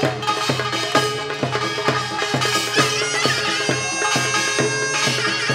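Korean pungmul folk band playing: drums and barrel drums beat a steady rhythm of about two strikes a second under a sustained, reedy wind melody.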